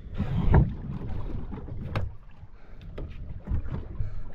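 Small boat drifting at sea: water slapping against the hull and wind on the microphone, with a louder rush about half a second in and several sharp knocks on the boat in the second half.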